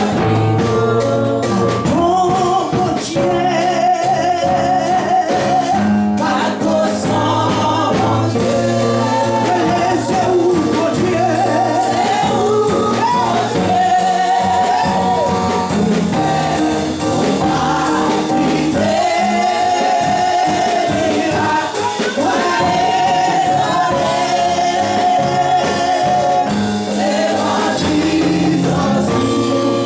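Gospel music: singers over a band with bass and drums, with steady beat and held sung notes.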